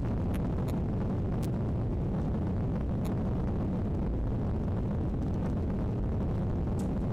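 Steady in-flight cabin noise of a Boeing 737-800: the deep, even rush of its CFM56 jet engines and airflow heard through the fuselage, with a few faint light ticks scattered through it.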